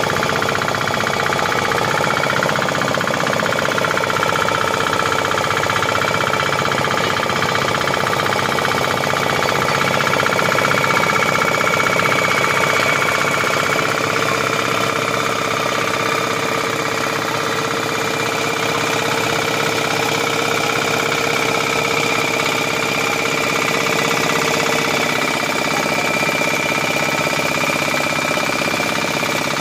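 Small fishing boat's engine running steadily under way, a fast, even pulsing drone that holds at one pace throughout.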